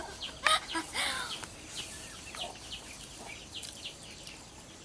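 Free-ranging chickens clucking, with a few short calls about half a second to a second in and faint chirps scattered through the rest.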